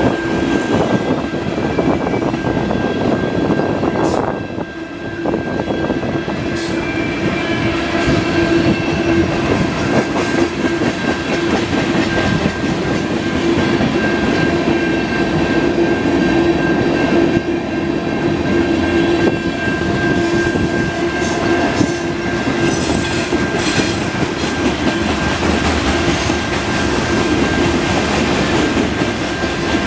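Freight train cars (tank cars and covered hoppers) rolling past close by, a continuous rumble and clatter of steel wheels on the rails with occasional knocks, and a steady ringing note running through it.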